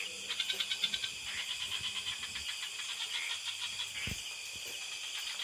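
Night insect chorus of crickets: steady high-pitched trilling, with a rapid pulsing call in the first couple of seconds. A single soft low thump comes about four seconds in.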